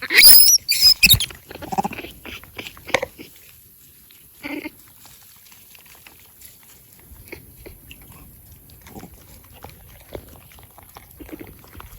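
Vervet monkeys calling: loud, high-pitched squeals that bend in pitch for about the first second, then a few shorter, lower calls over the next few seconds, fading to faint scattered small sounds.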